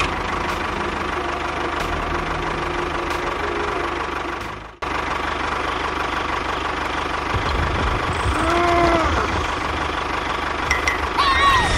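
A small machine's motor running steadily with an engine-like rumble. It cuts out abruptly about five seconds in and resumes at once, and a few short pitched squeals that bend up and down come later.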